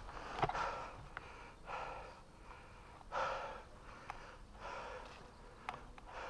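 A person breathing heavily close to the microphone, a breath about every second and a half, with a few faint sharp clicks between the breaths.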